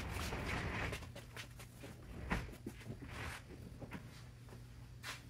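Scattered light knocks, taps and rustles of boxed parts and panels being handled, over a low steady hum.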